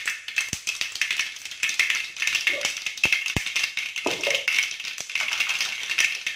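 Mustard seeds crackling and popping in hot oil in a kadai: a dense, steady run of small sharp pops over a sizzle. This is the seeds spluttering, the tempering stage that shows the oil is hot enough.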